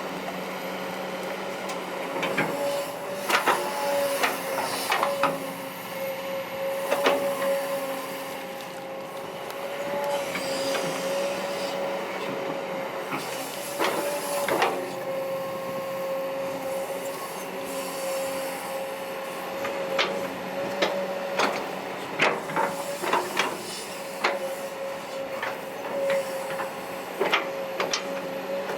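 Kobelco SK200-8 excavator working, with a steady whine running throughout and frequent sharp clanks and knocks from the machine's bucket and arm.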